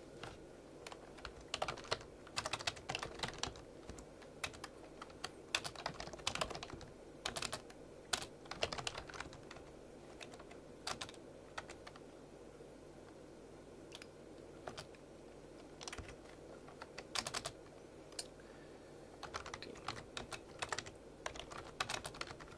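Computer keyboard typing: clusters of quick keystrokes in short irregular bursts with pauses between them.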